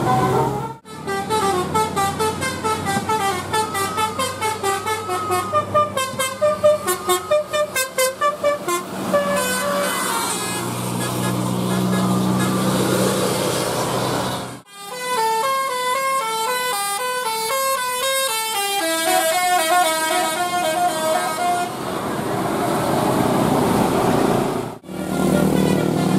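A bus's telolet horn, a multi-tone air horn, playing fast melodic runs of short stepped notes and held chords, with the bus engine running underneath. The horn is broken by two abrupt cuts.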